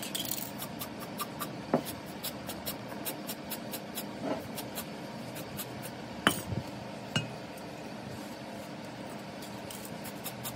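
Light metallic clinks and knocks from steel truck parts and an aerosol can being handled, with a few sharp clicks about two, six and seven seconds in, over a steady low hum.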